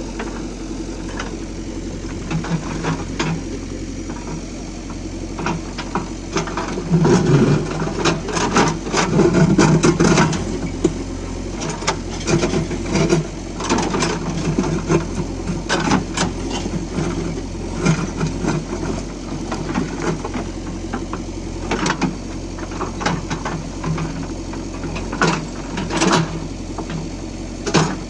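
JCB 3DX backhoe loader's diesel engine running steadily while digging, with frequent sharp clanks and rattles from the backhoe and bucket, loudest about a quarter of the way through.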